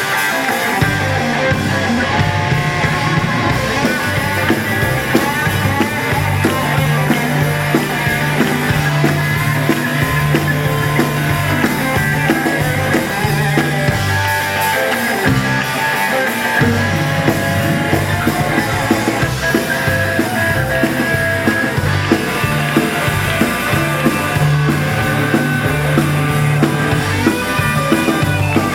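Live rock and roll band playing an instrumental break led by a guitar solo, with a steady low bass line underneath.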